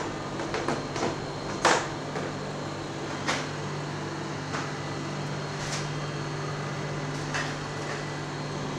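Steady low hum of kitchen equipment, with scattered knocks, clicks and rustles as cardboard boxes and plastic bags are handled; the loudest knock comes just under two seconds in.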